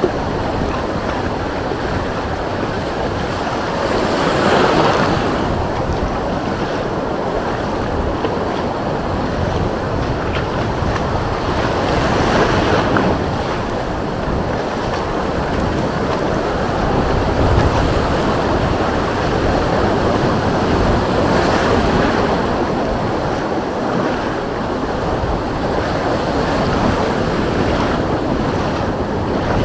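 Sea waves breaking on the shore, swelling up and washing in about every eight or nine seconds, three times, over a steady wind that buffets the microphone.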